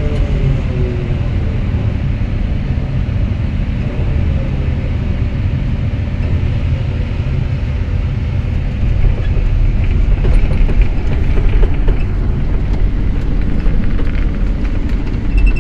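LiuGong excavator's diesel engine running steadily, a deep low rumble, with a short falling whine at the start. From about ten seconds in it gets louder and sharp knocks and clanks come through.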